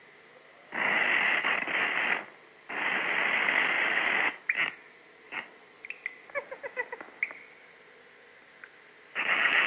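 Cartoon sound effects on an early optical soundtrack: two long, harsh rasping noises, a few sharp clicks, then a quick run of short plinked notes. Another long rasp starts near the end.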